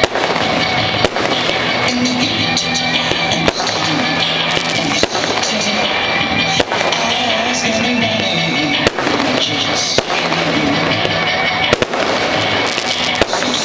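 Fireworks shells bursting in the air with sharp bangs, about one every second or two, over loud steady music.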